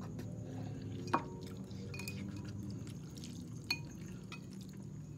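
Metal fork and spoon clinking against a bowl as ramen noodles are stirred and lifted: a sharp clink about a second in, another just before four seconds, and a few lighter taps, over a low steady hum.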